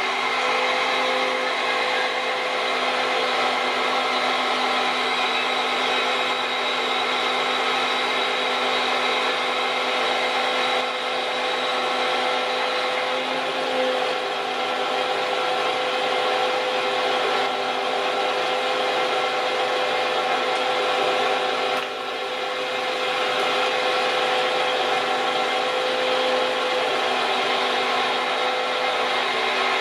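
Machinery running steadily: a rough mechanical drone with several fixed whining tones over it, unbroken, with a slight dip about three quarters of the way through.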